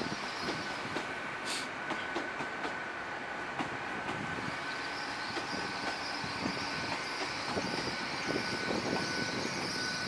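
A GWR Hitachi intercity train rolling along the station tracks, its wheels clicking over the rail joints, with a thin steady high whine throughout. A high hiss grows louder in the second half.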